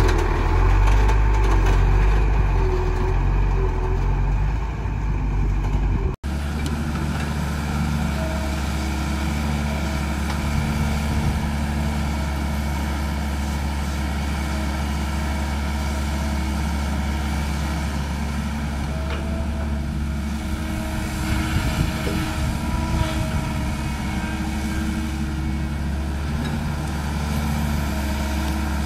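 A loaded dump truck's diesel engine rumbling as it drives past on a dirt track, fading over the first six seconds; after an abrupt cut, a Caterpillar E120B hydraulic excavator's diesel engine runs steadily as it digs, with a few faint knocks.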